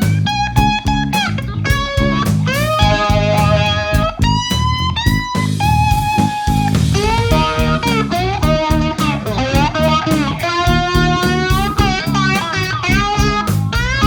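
Country-rock instrumental break: an electric guitar plays a lead with bent notes over bass and a drum kit.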